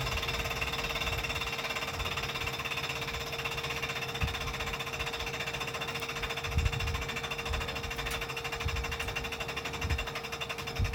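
MiG-17F's VK-1F turbojet running steadily at low taxi power: a constant whine over a fast, buzzing rush, with a few short low thumps scattered through.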